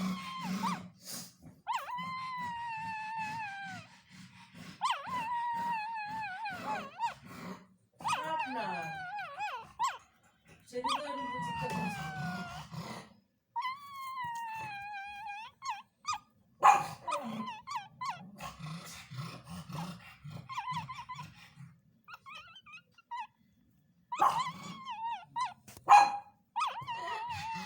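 Pug puppy whimpering and howling in its sleep while dreaming. A series of drawn-out whines slide down in pitch, some of them wavering, over a low rumble. Shorter broken yips and whimpers follow in the second half.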